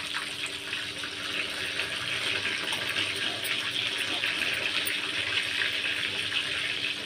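Rohu fish pieces deep-frying in hot oil in an iron pan, a steady sizzle, while being turned over with a metal spatula.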